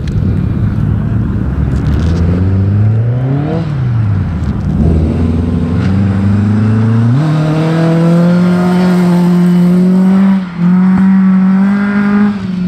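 Volvo 740's engine revving hard as the car drifts on ice: revs climb, drop sharply about three and a half seconds in, climb again and jump up about seven seconds in, then are held high with one brief dip before falling off near the end. The engine note is one that makes it plain the car is not a stock Volvo.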